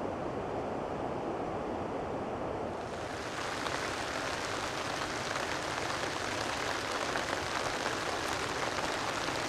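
Steady rushing water, low and full; about three seconds in it gives way to steady rain, a brighter hiss made of many fine drop hits on a surface.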